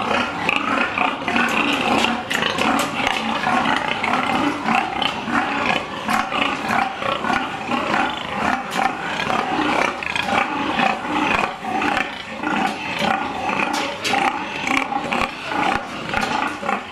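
Many confined pigs squealing at once, a loud, continuous din, with frequent sharp clanks through it.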